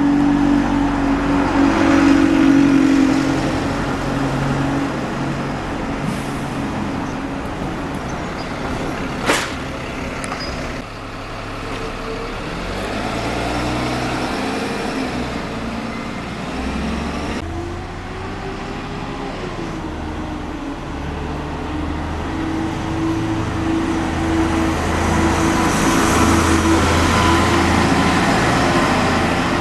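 Road traffic with buses running and moving off, their engine hum rising and falling. One sharp click sounds about nine seconds in.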